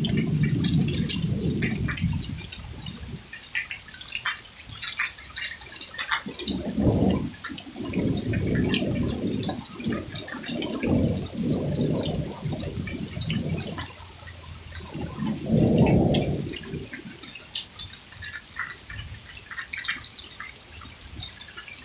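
Hailstorm: scattered sharp ticks of hail and drops striking throughout, with low rumbling surges that swell and fade several times.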